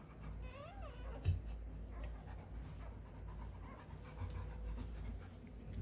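Saint Bernard in labour panting softly and shifting, with one short rising-and-falling whine about half a second in and a soft knock just after.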